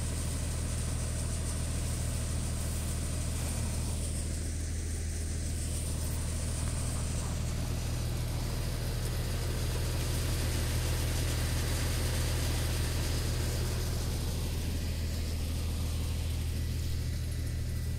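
Engine-driven sewage pumping equipment running steadily at a constant speed, a low, even hum that never changes, while sewage is pumped out of an overflowing sewer.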